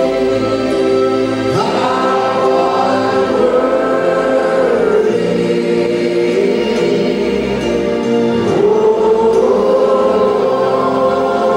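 A congregation singing a slow praise song together, with long held notes over musical accompaniment. A new sung phrase comes in about a second and a half in, and again about eight and a half seconds in.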